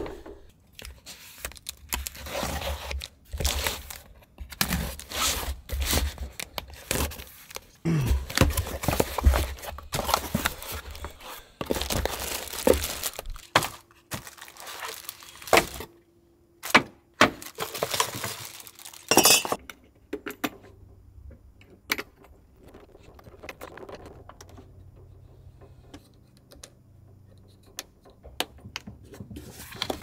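Hands handling packaging and parts: irregular rustling, knocks and clinks, busiest in the first half, then a few sharp knocks and a quieter stretch.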